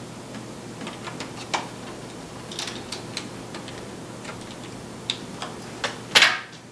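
Light, irregular clicks and ticks of small screws, a screwdriver and plastic parts as the laptop's plastic screen bezel is screwed back in place, with a louder clatter about six seconds in.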